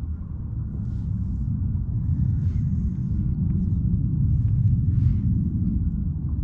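Steady low rumble of wind buffeting the camera microphone, with a few faint, brief hissy sounds over it.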